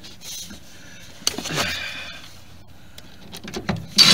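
Hand handling noises as a car headliner is pushed and worked up under the roof trim: scattered clicks and rubbing, with a short strained grunt that falls in pitch about a second in and a louder burst of rubbing near the end.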